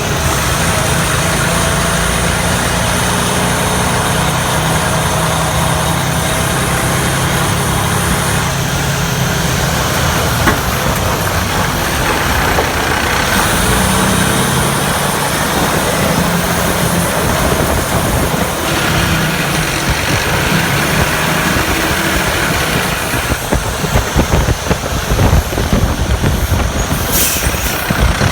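Heavy truck's engine running steadily, with a short hiss near the end.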